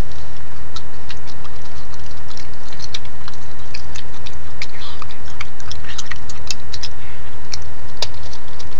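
Steady electrical hum with a faint high whine from the night-vision camera's own audio. Over it come scattered light clicks and scratches from a raccoon moving about close to the camera, busiest in the middle.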